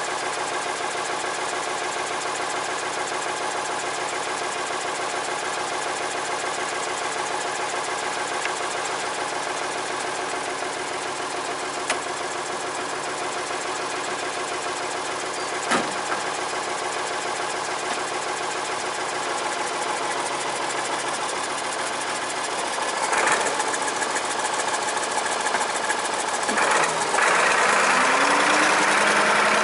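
An engine running steadily, with a couple of sharp clicks partway through. It grows louder and rougher over the last several seconds, with a rising tone near the end.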